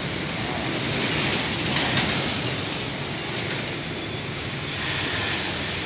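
Steady noise of passing road traffic, with a couple of light clicks about one and two seconds in.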